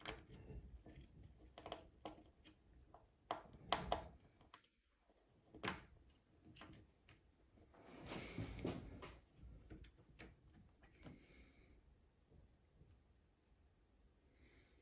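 Faint clicks and knocks of laptop parts being handled during a screen replacement, loudest about four seconds in, with a brief stretch of rustling noise around eight seconds.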